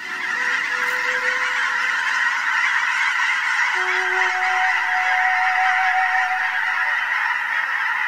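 A large flock of geese honking all at once in a dense, continuous din that starts suddenly. Soft sustained music notes sound underneath.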